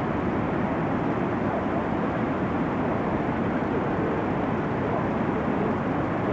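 Niagara Falls' falling water making a steady, deep, even rush with no breaks.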